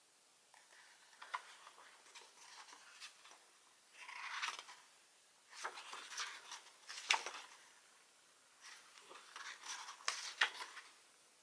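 Pages of a glossy photo book being turned by hand: paper rustling and sliding in three bursts, two of them ending in a sharp flap as the page falls over.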